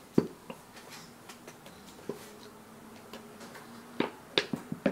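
Plastic squeeze bottle of white glue being squeezed by hand, giving sharp clicks and pops as the plastic flexes and air sputters through the nozzle. There are a few at the start and a quick cluster of them near the end.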